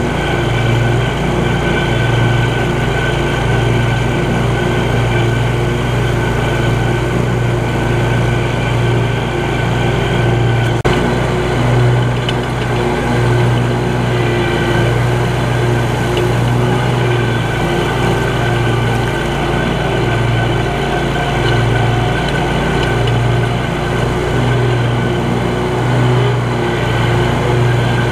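Scag Cheetah 52-inch zero-turn mower's engine running steadily while it mows grass, the drone holding an even level.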